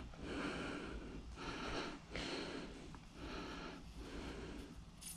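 A person breathing heavily through the nose close to the microphone: about five noisy breaths in and out, roughly a second apart.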